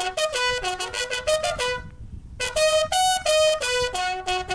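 Military bugle call played as a salute: quick runs of short notes, a brief break about two seconds in, then longer held notes.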